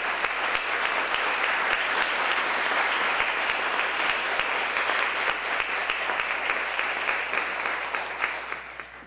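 Audience applauding at length, a dense patter of many hands clapping that fades away near the end.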